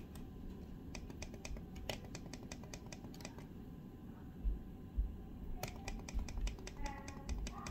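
Lutron Caseta dimmer buttons clicking under a finger, pressed rapidly in two runs of about two seconds each, several clicks a second. Two dull thumps fall in the pause between the runs.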